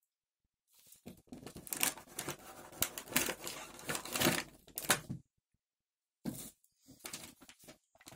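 Clear plastic packaging and a cardboard box crackling and rustling as a toy RC helicopter is slid out of its box: a dense run of crinkling for about four seconds, then a few brief rustles near the end.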